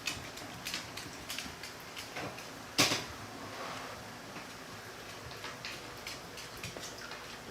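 Cats playing and scuffling on a floor: scattered light taps and clicks, with one sharp knock about three seconds in.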